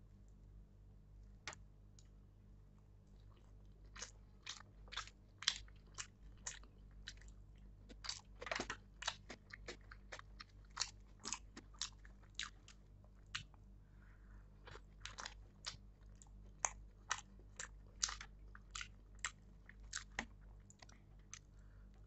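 A person chewing pav bhaji (buttered bread rolls with mashed vegetable curry) close to the microphone, with sharp mouth clicks about two or three a second from about four seconds in, over a low steady hum.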